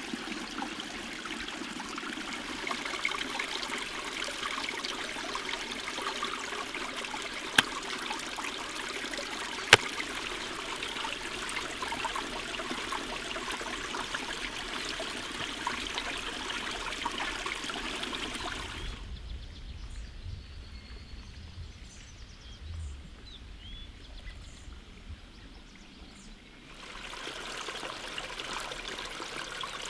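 Running water trickling steadily, with two sharp clicks about a quarter of the way in. About two-thirds of the way through the water sound drops out for several seconds, leaving a low rumble and a few faint bird chirps, then returns.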